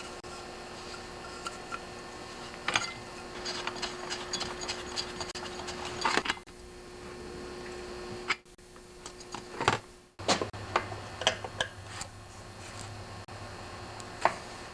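Scattered light clicks and taps of small metal parts and tools being handled, over a steady hum, with two abrupt cuts in the sound.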